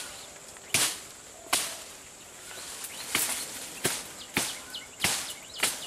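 A run of sharp cracks, about eight in quick, irregular succession, over a steady high insect drone.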